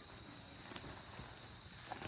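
Night insects trilling at one steady high pitch, over a soft rustle of nylon tent fabric being pulled up, with two light clicks, the second near the end.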